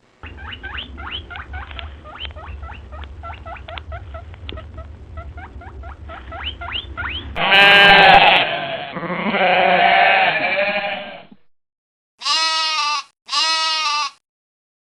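A run of rapid, short, high chirps over a low hum, then loud bleating calls, then two short separate bleats near the end.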